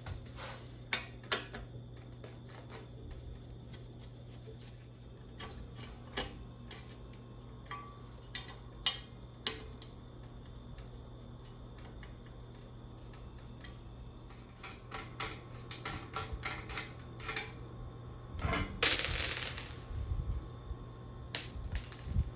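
Metal tools and bicycle parts clinking and knocking during hands-on bike assembly, in scattered single strikes over a steady low hum, with a loud hiss lasting about a second just before the end.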